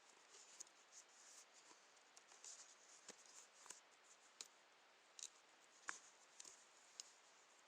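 Near silence: faint steady hiss with scattered small clicks and rustles, the sharpest a little before the end.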